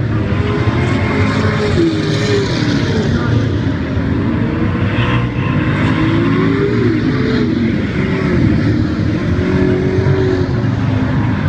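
Several speedway saloon race cars' engines running together on a dirt oval, their pitch rising and falling as they rev and pass.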